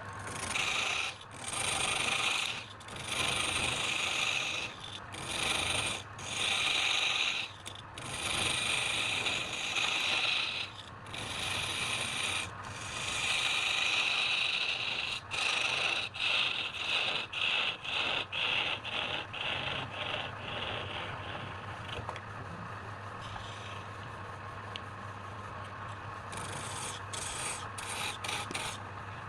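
Wood lathe running with a low hum while a tool or abrasive rubs against the spinning wood in repeated passes, a loud hissing scrape that breaks off briefly many times. The scraping fades toward the end, leaving mostly the lathe's hum.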